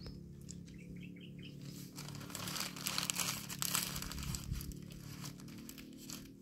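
Paper food wrapper being crumpled up in the hands: a dense crackling that starts about two seconds in, is loudest around three to four seconds, and then dies down.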